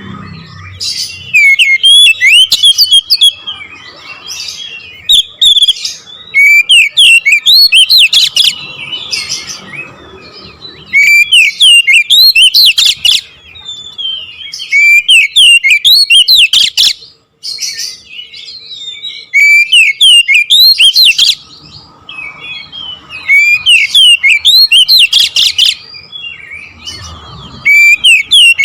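Oriental magpie-robin (kacer) singing: loud phrases of rapid, sharp whistled notes and trills, each lasting a second or two, repeated with short pauses between.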